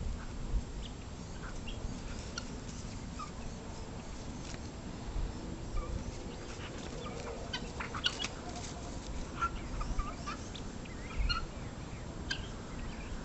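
Scattered short, quiet calls and clicks from a dog and a turkey squaring off, over a steady low rumble.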